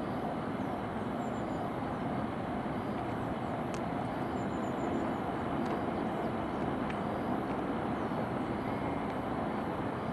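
Steady distant rumble of town traffic and rail traffic, with a train on the Shinkansen lines among it.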